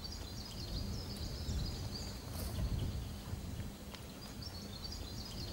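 Outdoor ambience: faint, high, chirping bird calls come and go over a low, uneven rumbling noise.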